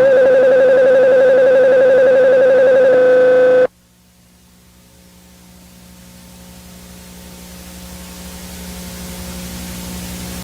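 A loud, steady electronic tone with a slight waver, held for nearly four seconds and cut off suddenly. A low hum under hiss follows and grows steadily louder.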